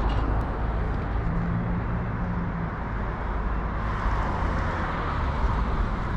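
Steady outdoor rumble of road traffic and machinery, with an engine's low hum standing out for a second or two near the start.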